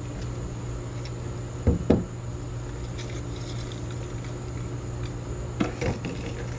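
Two pairs of dull knocks with a light clatter, one pair near two seconds in and one near the end, over a steady low hum and a high insect buzz.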